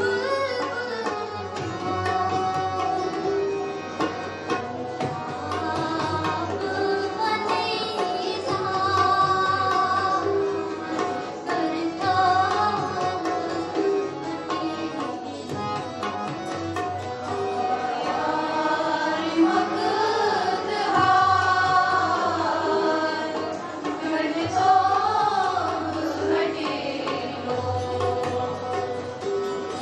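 Choir of girls singing a Kashmiri song together, accompanied by a harmonium's held chords and a hand-drum beat.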